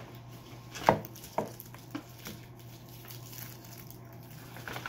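A sharp knock on a tabletop about a second in, then a few lighter taps and handling noises, over a steady low hum.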